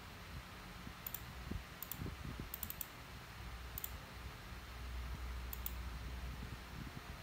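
Light, sharp clicks of xiangqi pieces being handled and tapped against one another and the board. There are about six scattered clicks, a few of them in quick succession, over a faint low room rumble.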